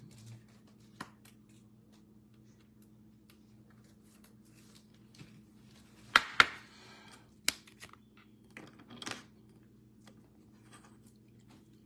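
Trading cards and clear plastic card holders being handled: two sharp clicks a little past six seconds in, the loudest sounds, followed by a brief rustle. Scattered light clicks and rustles come before and after.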